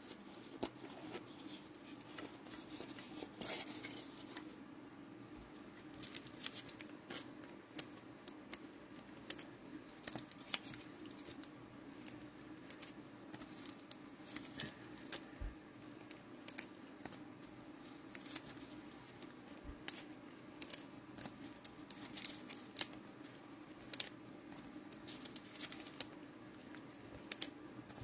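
Cello packs of trading cards being opened and the cards handled: many short, sharp crackles and clicks of plastic wrapper and card stock, over a steady low hum.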